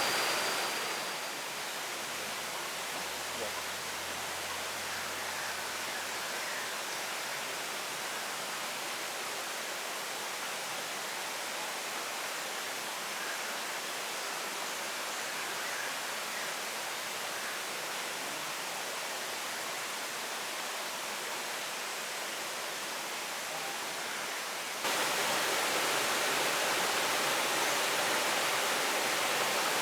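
Steady rushing of flowing river water. It turns suddenly louder about five seconds before the end.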